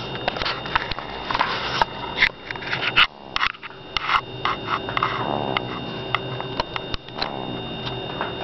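A sleeping baby snoring, with one drawn-out snore about five seconds in. A string of sharp clicks and taps, loudest in the first three seconds, runs over it.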